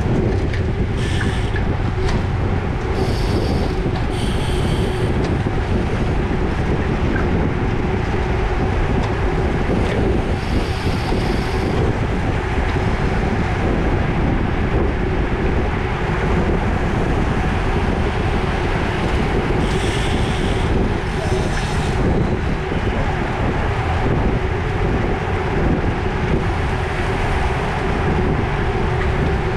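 Wind buffeting the microphone of a bike-mounted camera as a road bicycle rides in a bunched race pack, with a steady hum of tyres and drivetrain under it. A few brief high-pitched buzzes come and go, around a second in, near the middle and about two-thirds through.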